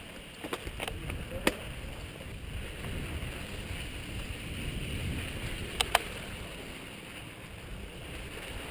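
Mountain bike rolling over a rocky dirt trail: a steady low rumble of tyres on dirt, with a few sharp clacks of the bike rattling over rocks, the loudest about a second and a half in and a pair near six seconds in.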